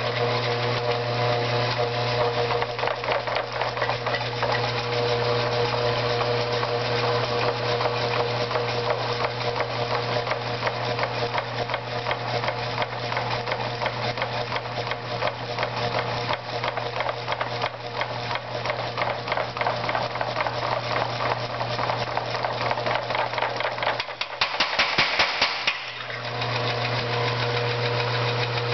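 A just-rebuilt 25 lb Little Giant power hammer running smoothly: the electric drive motor hums steadily under a fast, even clatter from the ram cycling up and down on its spring linkage. About 24 seconds in, the clatter briefly gets louder while the motor hum drops away, then the hum comes back.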